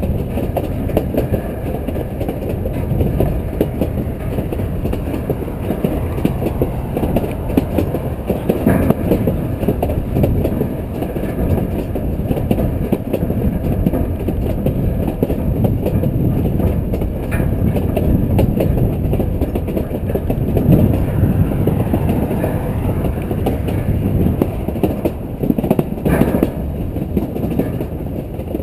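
Garden-scale model train rolling along its track, heard from on board: a steady rumble of wheels on the rails, with a few sharper clicks as it passes rail joints.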